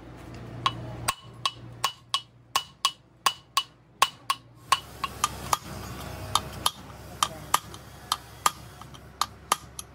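Metal being struck repeatedly with a hammer, about two to three blows a second at an uneven pace, each blow with a short metallic ring.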